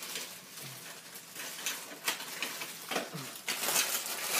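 Metal conduit end fittings being handled, with light rustling and scraping and a few small clinks, more of them in the last second or so.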